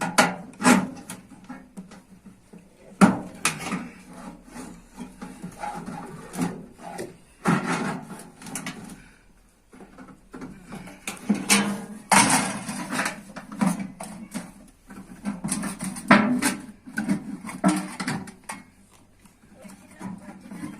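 Irregular knocks and taps with scraping and rubbing between them, the sounds of hand work on a piece being made in the workshop.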